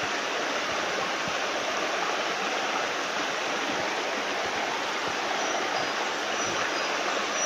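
Small, shallow stream flowing steadily over stones and gravel in a riffle.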